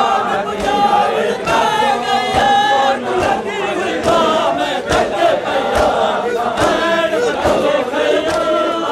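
Crowd of men chanting a Shia mourning chant together, with sharp slaps of hands on bare chests (matam) keeping a beat about twice a second.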